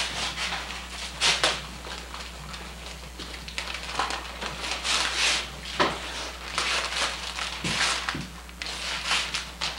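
Wrapping paper and tissue paper rustling and crumpling in irregular bursts, over a steady low hum.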